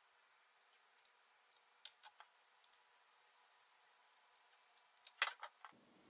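Faint, sparse clicks of a small screwdriver backing out the screws of a laptop hard drive's metal mounting bracket, with a short cluster of sharper clicks near the end.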